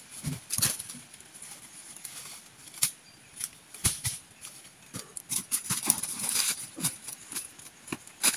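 Footsteps crunching through dry leaf litter and twigs, with scattered knocks and scrapes of wood as a cut log is handled and pushed by hand. The rustling thickens for a couple of seconds past the middle.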